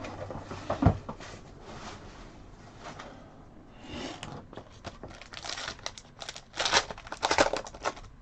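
Trading card pack being torn open, its wrapper crinkling, with cards rustling and clicking as they are handled. The loudest crinkling comes in two bursts near the end.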